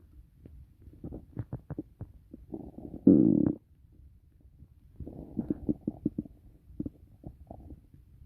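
Human stomach and intestines gurgling during digestion after a meal. A string of short pops and bubbling gurgles, with the loudest gurgle about three seconds in, lasting about half a second, and another cluster of gurgles about five seconds in.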